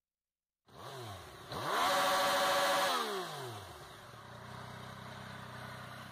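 Motorcycle engine revving: a couple of quick throttle blips, then a high rev held for about a second, then falling back to a steady idle.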